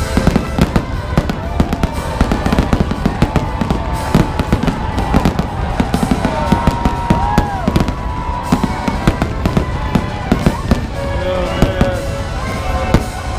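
Fireworks display: a dense, continuous run of bangs and crackles, with whistles gliding up and down in pitch among them.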